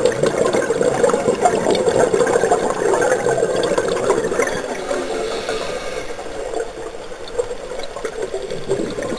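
Scuba regulator exhaust bubbles gurgling and rushing past the underwater camera housing. They ease off about five seconds in and pick up again near the end, as with a diver's breathing cycle.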